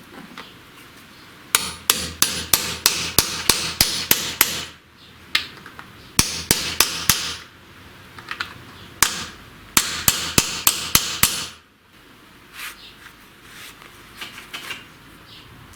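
Hammer striking metal in quick series of blows, about four or five a second, in three runs with short pauses between them, then a few lighter taps.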